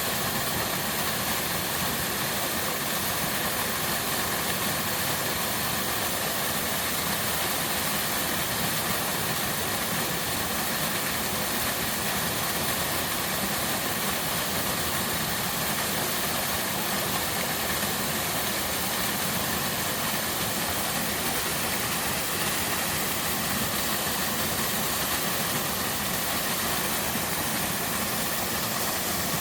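Waterfall in a mountain stream, water pouring down in a steady, unbroken rush.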